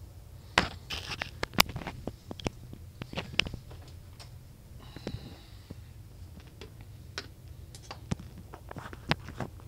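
Irregular clicks and knocks of small hard objects being handled and moved about, as tools are rummaged through for a screwdriver, with a short soft rustle about halfway.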